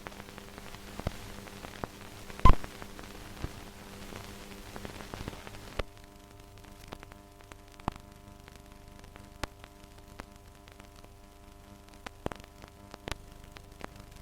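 Worn optical soundtrack of old 35mm film playing without speech or music: a steady hiss with a faint hum, crackling with scattered clicks and pops. One much louder pop comes about two and a half seconds in, and the hiss drops in level about six seconds in.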